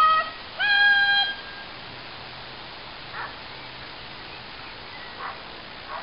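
A dog handler's loud recall call, heard twice: the tail of one held high note right at the start, then a second held note lasting under a second. After that only a faint steady background remains, with a few brief faint sounds.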